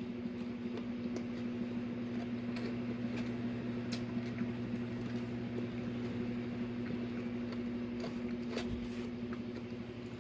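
Faint eating sounds, a few scattered mouth clicks and chewing noises, over a steady low hum.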